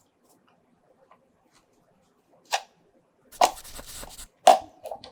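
Hard plastic parts of a GoPro Karma drone clicking and rattling as a rear arm piece is fitted into place: a sharp click about two and a half seconds in, about a second of rattling, then another click.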